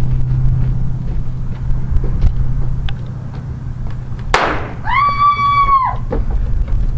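A single gunshot, most likely a blank fired in a gunfight reenactment, sharp and loud, about four seconds in. It is followed at once by a high held tone lasting about a second.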